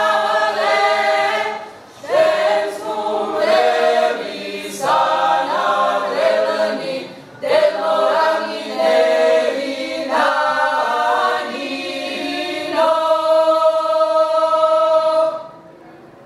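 Mixed a cappella choir singing a Georgian polyphonic table song (supruli) in several short phrases. It ends on a long held chord that stops about a second before the end.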